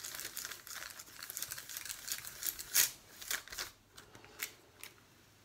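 Parchment paper crinkling and rustling as it is handled and pressed down into a silicone mould, in irregular crackles with a sharper one a little before the middle, thinning out toward the end.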